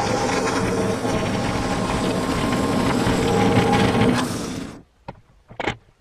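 Norwood Lumberlite ML26 band sawmill running and sawing through a maple log, a loud steady machine-and-blade noise. It stops abruptly about three-quarters of the way in, leaving a few faint clicks.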